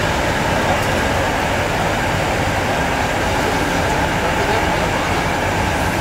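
Continuous carbonization furnace and its motor-driven drive running: a loud, steady mechanical rumble and hiss with no distinct knocks or changes.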